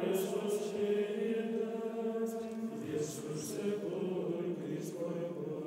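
Background music of chanting voices in long held notes, changing pitch about halfway through and slowly fading.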